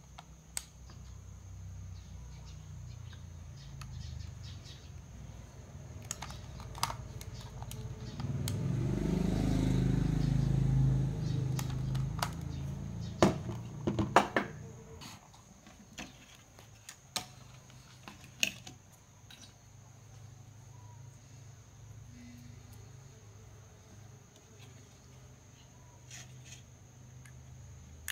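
Small clicks and taps from hands working a TV power-supply circuit board and soldering tools, over a low steady hum. A louder low rumble swells and fades about a third of the way in, followed by a cluster of sharp taps.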